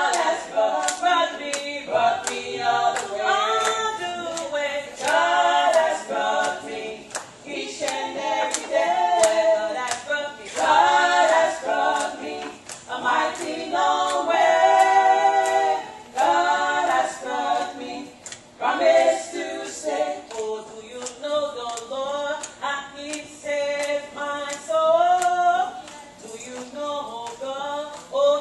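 Two women singing a song together into handheld microphones over a PA, with a steady beat of sharp handclaps.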